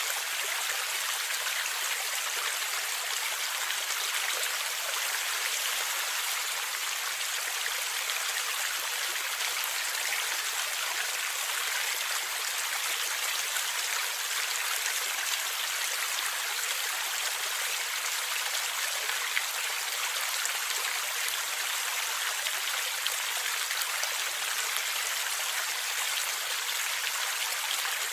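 Stream water flowing and gurgling steadily: an even rushing hiss with almost no low rumble.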